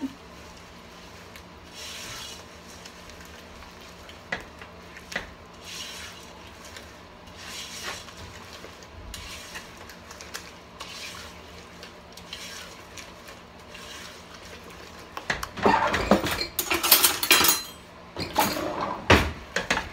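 A silicone spatula stirring a thick oat and peanut-butter mixture in a saucepan: soft scraping strokes every second or two, then louder, quicker scraping with sharp knocks against the pot during the last few seconds.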